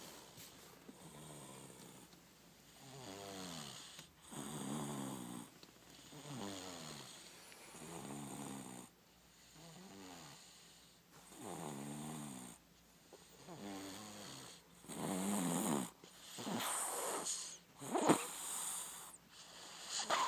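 A person snoring very loud, one pitched snore every one and a half to two seconds, each sliding up and down in pitch. The snores grow louder in the second half, with one sharp, loudest snore near the end.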